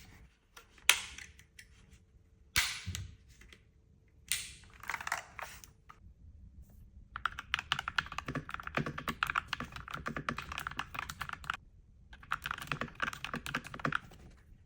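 Keychron K2 V3 mechanical keyboard being typed on: rapid key clicks in two runs with a short pause between. A few separate knocks and a rustle of handling come before the typing.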